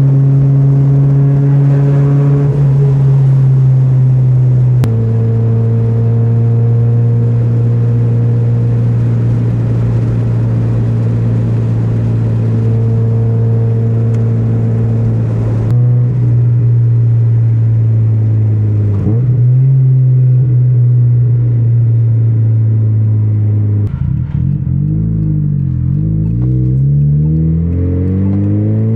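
NA Mazda Miata's 1.6-litre four-cylinder engine running under way, holding a steady note that shifts in pitch a few times. Over the last few seconds the revs rise and fall repeatedly.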